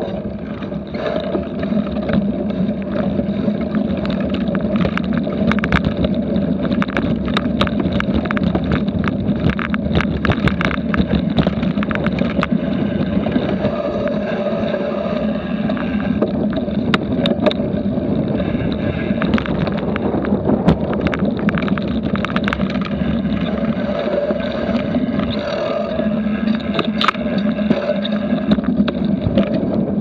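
Cyclocross bike ridden fast over bumpy grass: a steady rush of wind on the action camera's microphone with frequent sharp rattles and knocks as the bike jolts over the ground.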